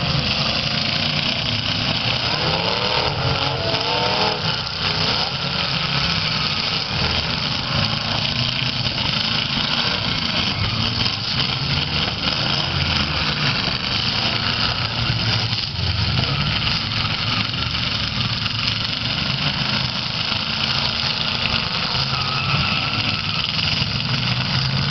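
Eight-cylinder demolition derby cars' engines revving hard with their wheels spinning as the cars shove against one another, a dense continuous engine noise that rises and falls in pitch.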